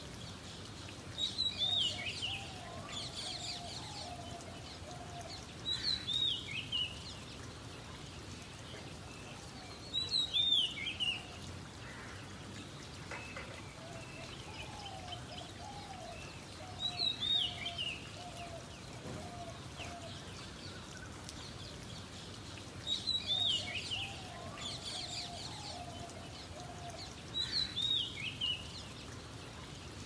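Oriental magpie-robin singing: six short phrases of clear, sweeping whistled notes, one every four to six seconds, with softer lower notes under some of them. A steady hiss of rain runs underneath.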